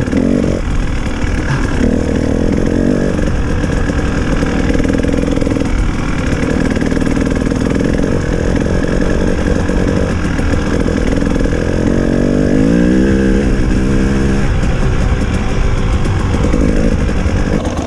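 Off-road motorcycle engine running on the trail, its pitch rising and falling with the throttle, with a run of quick climbs in revs about twelve seconds in.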